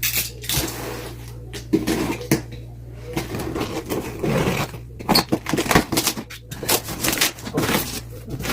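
Packaging and parts of a boxed bike repair stand being handled: irregular rustling, scraping and knocks, with scattered sharp clicks.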